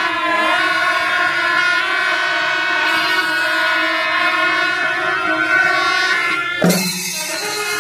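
Kombu horns of a Kerala temple festival ensemble blaring sustained, overlapping notes. About six and a half seconds in they break off sharply and move to a new set of notes.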